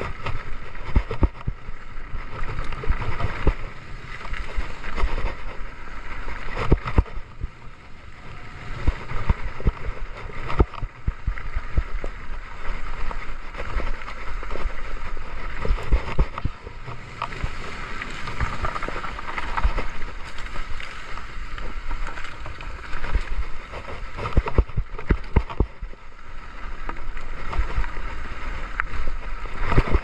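Mountain bike riding down a rough trail: tyres rumbling and the frame, chain and parts rattling, with frequent sharp knocks as it rolls over grid paving blocks, wooden boardwalk slats and dirt. Wind noise on the microphone runs underneath.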